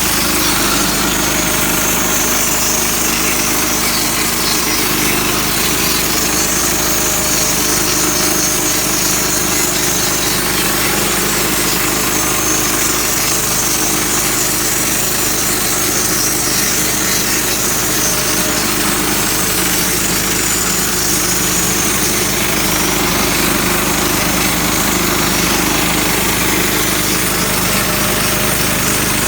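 Harbor Freight portable band sawmill's gasoline engine running steadily under load while the band blade cuts through a log, a loud, even drone with a hissing cutting noise over it.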